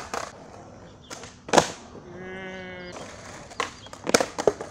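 Skateboard deck clacking hard on paving stones about a third of the way in, followed by a short, steady-pitched vocal cry, then a quick run of board clacks and pops near the end.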